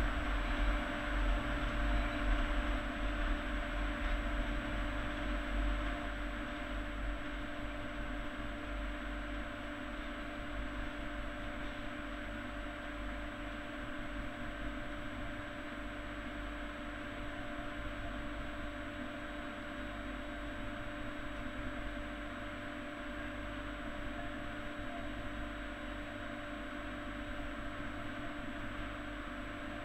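Railway locomotive running close by, a deep rumble under a steady mechanical hum. It is loudest in the first few seconds, then eases to an even drone.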